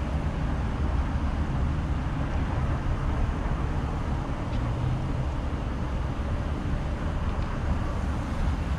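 Steady low outdoor rumble, with a couple of faint light clicks partway through.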